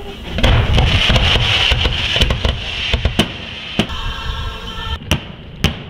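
Fireworks going off: a dense crackling rush of launches and bursts starting about half a second in, then four separate sharp bangs.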